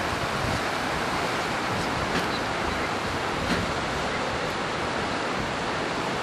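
Yuba River rushing, a steady, even hiss of flowing water with no breaks.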